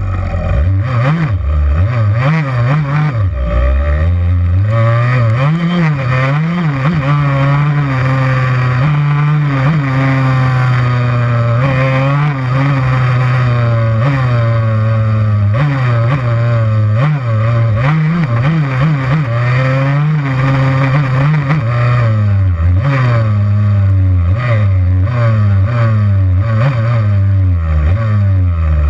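Yamaha YZ85 dirt bike's two-stroke single-cylinder engine under way on a trail, revving up and dropping back again and again with the throttle, held steadier for a few seconds in the middle.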